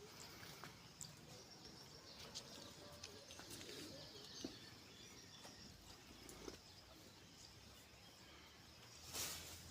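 Near silence: faint background hiss with a few soft scattered ticks, and a brief rush of noise near the end.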